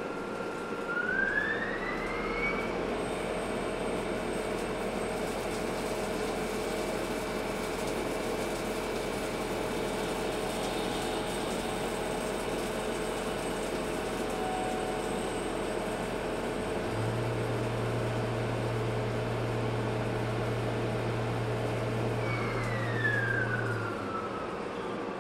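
CNC lathe machining a small screw under flood coolant: the spindle whine rises as it speeds up about a second in, runs steady over the hiss of the coolant spray, and falls away as the spindle slows near the end. A lower hum comes in for the last third.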